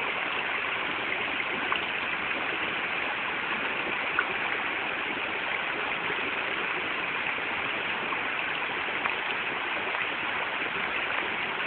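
Steady rush of flowing water, with a few faint ticks.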